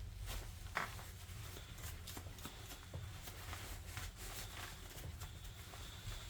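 Light handling noise: scattered small clicks and scrapes of parts and tools being handled, with one sharper click about a second in.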